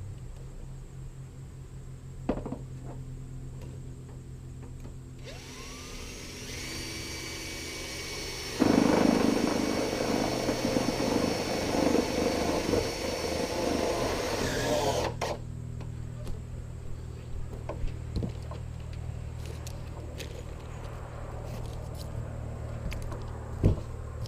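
A power tool runs for about ten seconds with a steady whine, growing louder and rougher about halfway through as it works, then stops suddenly. Around it a steady low hum and a few single knocks are heard.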